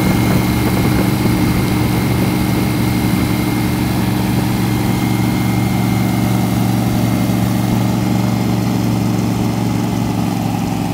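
Airboat's 572 cubic inch big block Chevy V8 and counter-rotating propeller running steadily at speed. The sound gets a little quieter near the end.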